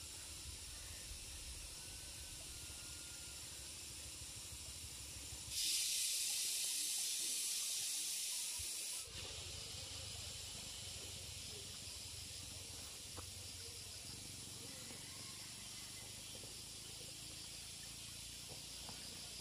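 Steady high hiss of outdoor background noise, which swells into a much louder hiss for about three and a half seconds in the middle, starting and stopping abruptly.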